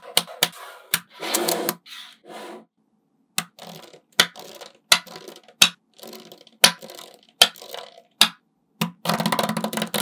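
Small magnetic balls clicking sharply as strips of them are snapped together and pressed into place, an irregular series of clicks with spells of clattering rattle about one and a half seconds in and near the end.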